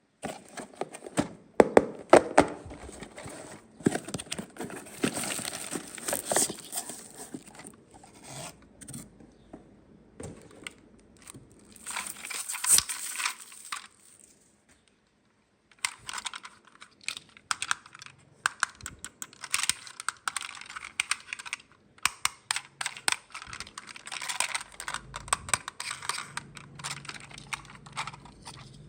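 Packaging being handled and opened: wrapping crinkling and tearing, mixed with many small sharp clicks. There are several stretches of this, with a short pause about halfway.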